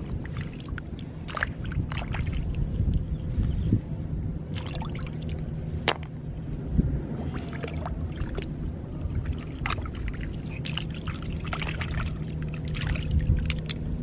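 Hands sloshing and splashing in shallow muddy water, groping among water plants for snails, with water trickling off them and several sharp little splashes. A faint steady low hum runs underneath.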